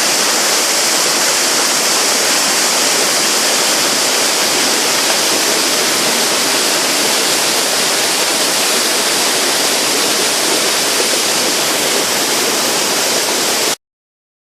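Village stream pouring over a waterfall, swollen by days of continuous rain: a loud, steady rush of water that cuts off suddenly near the end.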